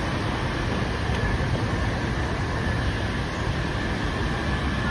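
Steady low rumble of a subway station: the running escalator and train noise under the station's vaulted concrete ceiling.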